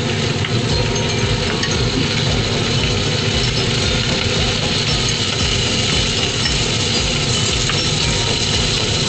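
Chicken wings frying in butter in a saucepan, a steady sizzle, with a few light clinks of the utensil against the pan as the wings are turned.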